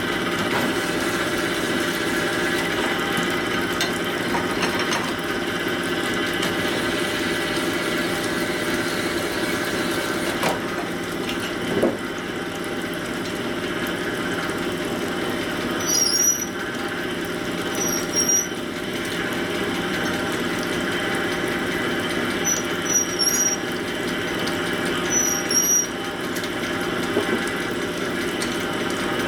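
Horizontal connecting-rod honing machine running steadily, its motor and honing-oil pump humming, while a connecting rod's big end is honed out a few tenths of a thousandth to fit the crank pin. In the second half come several short, high squeaks.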